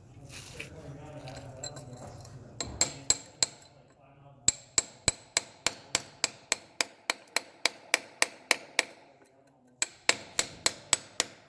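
Rapid hammer strikes, about three a second, breaking a cast bronze claw out of its casting mold, each blow sharp with a bright metallic ring. The hammering starts about three seconds in and comes in three runs, with short pauses between them.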